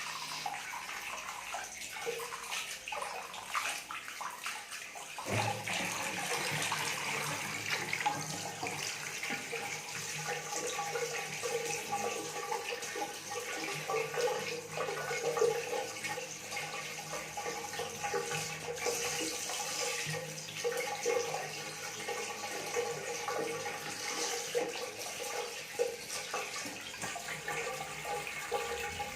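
Water running and splashing into a tub or basin as a cat is given a bath. A steady faint hum joins the water about five seconds in.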